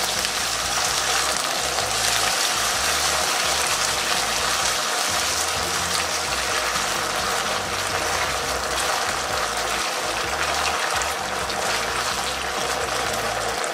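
Chicken skin bubbling and sizzling in yakiniku sauce in a deep Chinese wok as the sauce reduces, a steady hiss. Background music plays underneath.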